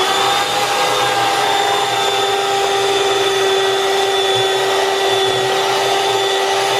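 Electric hand mixer running steadily at speed, its beaters whisking egg yolks and sugar in a plastic bowl, with a steady motor whine.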